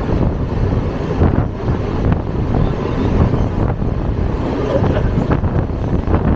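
Steady rumble of a Mumbai suburban local train running fast, heard from on board, with wind buffeting the microphone and a few faint clacks from the wheels.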